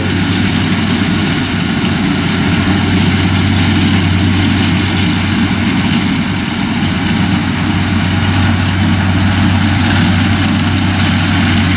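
Kubota DC-60 combine harvester running steadily as it cuts rice: a constant diesel engine drone with a low hum and the rushing noise of the working machinery.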